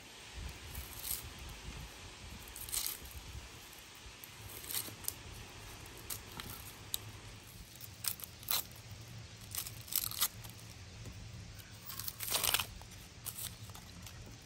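Dry, papery onion skin crackling and tearing as it is peeled and scraped off a white onion with a small knife, in short irregular crinkles and scrapes, the longest near the end.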